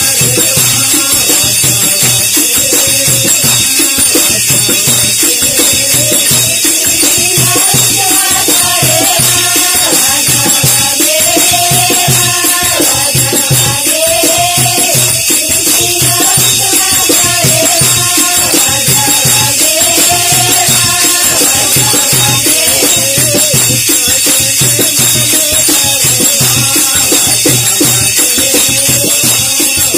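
A group singing a Wagdi Christian devotional song together, with hand clapping and jingling rattle-like percussion keeping a steady beat.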